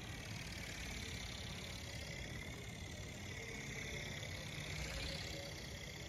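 The small electric motor and gearbox of a Go Go Bird RC ornithopter whining as it flaps its wings in flight, its pitch wavering up and down, over a low steady rumble.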